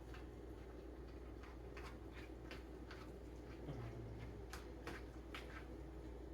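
Faint, irregular light clicks and taps, about a dozen spread across a few seconds, over a steady low hum.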